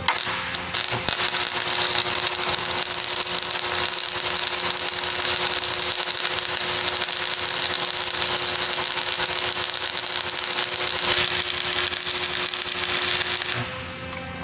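Stick (electrode) arc welding on a steel post: the arc crackles and sizzles steadily, with a faint steady hum under it, and breaks off about a second before the end.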